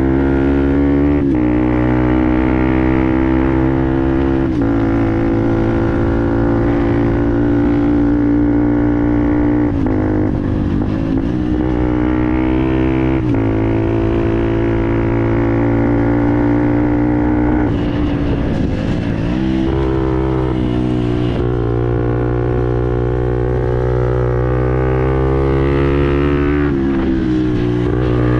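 Fantic Performance 125 Motard's single-cylinder engine breathing through a GPR aftermarket exhaust, running at steady high revs on the move. The revs dip and pick up again several times, as at gear changes or throttle lifts, with a longer dip about two-thirds of the way through.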